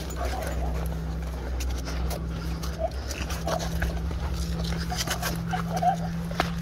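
A dog panting while walking on a leash, with scattered footsteps and scuffs on a sandy trail, over a steady low hum.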